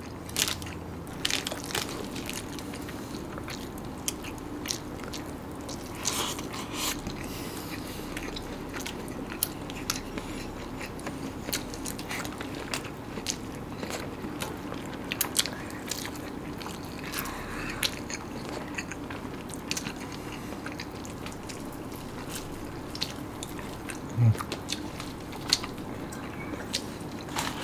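Close-miked chewing and biting of a nasi ambeng rice platter, with many short crunchy clicks scattered throughout, over a steady low hum.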